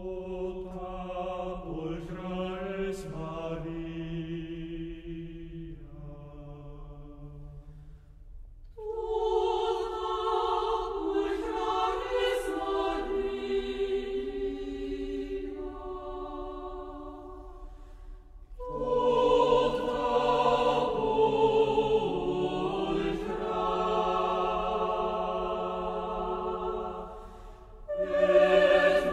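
Background choral music: voices singing slow, sustained chords in long phrases. There are brief breaks about 8 and 18 seconds in, and a louder entry just before the end.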